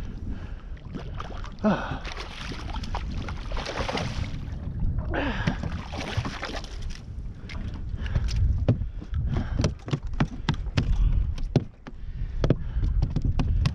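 A queenfish splashing at the surface beside a small aluminium boat, twice, as it is landed, then a quick run of sharp taps and knocks as it flaps in the boat. Wind on the microphone throughout.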